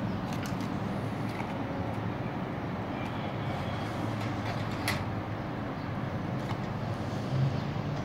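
Steady low background rumble, with a single sharp click about five seconds in.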